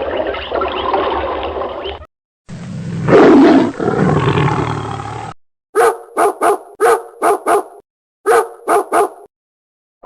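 A dog barking, about nine short, sharp barks in quick succession in the second half. It is preceded by two separate, abruptly cut clips of other loud, noisy sounds, the loudest peaking about three seconds in.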